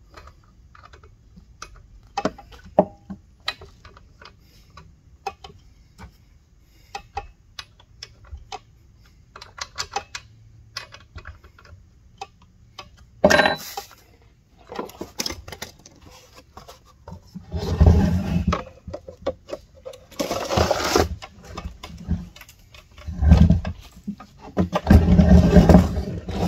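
Handling noises from a chainsaw on a wooden workbench: scattered light clicks and ticks, then over the last half several louder knocks and shuffling, scraping sounds as the saw is moved off the bench.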